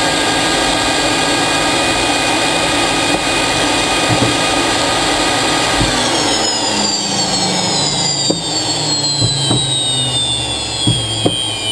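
Military jet's engine whining steadily at ground idle, then spooling down from about six seconds in, its tones falling away as it winds down after shutdown. A few sharp clicks come near the end.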